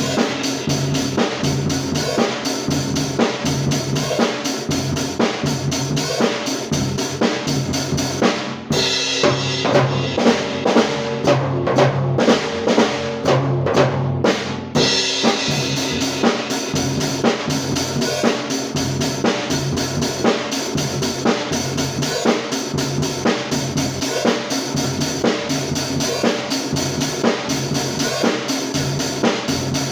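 Drum kit playing a steady pop rock beat on an isolated drum track, with kick drum and snare. About nine seconds in the bright cymbal top end stops for some six seconds while the drums carry on, then comes back.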